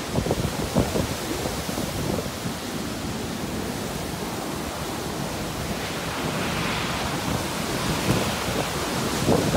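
Violent tornado winds with heavy rain, a continuous rushing hiss. Gusts buffet the microphone in the first couple of seconds, and the hiss grows louder past the middle.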